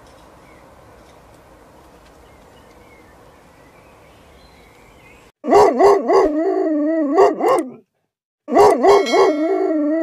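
Grey wolf howling in two bouts of about two seconds each, the pitch wavering up and down quickly, after about five seconds of faint steady hiss.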